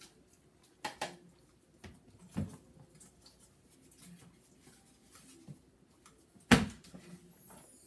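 Kitchen handling sounds: a few soft knocks while brown sugar is crushed by hand over a plastic container, then one sharp clack about six and a half seconds in as a spatula goes into a metal saucepan of butter sauce.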